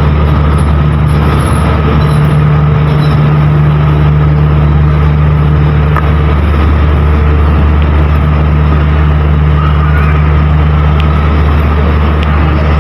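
A train's diesel engine running steadily at close range: a loud, unchanging low drone.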